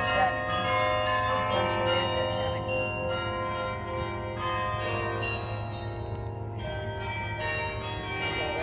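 Bok Tower's carillon bells playing a melody, each struck note ringing on and overlapping the next.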